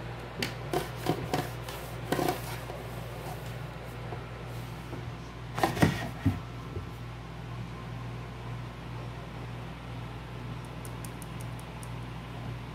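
Handling knocks as small hard objects are picked up and set down on a hard surface: a few knocks in the first two seconds and a louder cluster about six seconds in, then faint quick ticks near the end. A steady low hum sits underneath.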